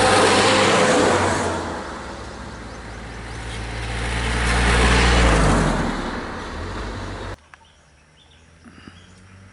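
Road vehicles driving past close by, with engines and tyre noise: one loud pass right at the start and another swelling to a peak about five seconds in as a three-wheeler comes up. About seven seconds in the sound cuts off abruptly to a much quieter background with faint chirping.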